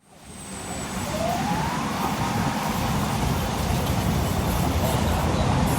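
Steady road traffic noise with a heavy low rumble of wind on the microphone, fading in at the start. A faint tone rises in pitch about a second in and then holds.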